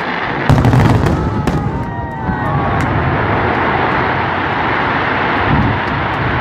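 Aerial fireworks shells bursting overhead: sharp bangs about half a second and a second and a half in, then a steady dense din of further bursts.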